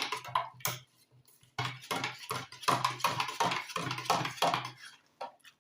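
A utensil stirring in a bowl, clicking and scraping against its side in quick repeated strokes, with a short pause about a second in: Natrosol powder being stirred into water until it dissolves.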